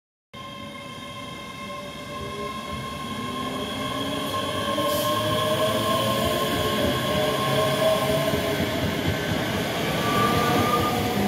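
ScotRail Class 385 electric multiple unit pulling out of a station, a whine of several steady tones over a rumble, some tones rising slightly as it gathers speed and the whole sound growing louder as it draws away past the platform.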